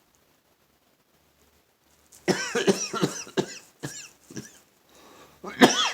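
A fit of short sneezes and coughs: quiet for the first two seconds, then about six quick bursts in a row, and one louder burst near the end.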